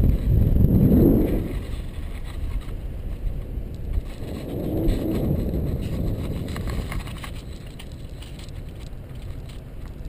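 Wind buffeting the camera microphone: an irregular low rumble that swells about a second in and again around five seconds.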